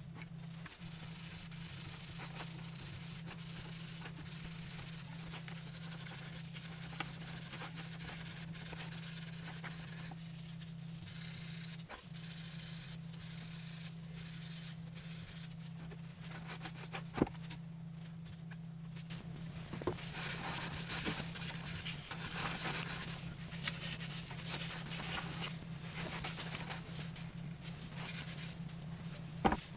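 Scrubbing and rubbing on metal motorcycle hub parts as they are cleaned, busier and scratchier in the second half, with a few light clicks. A steady low hum runs underneath.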